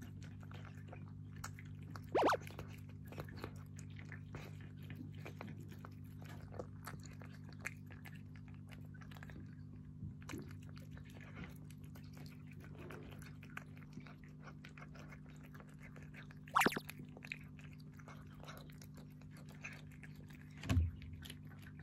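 Tabby-and-white cat eating wet cat food mixed with dry kibble from a plate: a steady run of small wet chewing and crunching clicks. Two louder sharp clicks stand out, about two seconds in and again about sixteen seconds in, and there is a dull thump near the end.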